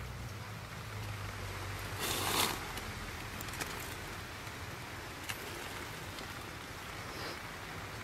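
Steady outdoor hiss in woodland, with a brief rustle about two seconds in and a few faint clicks.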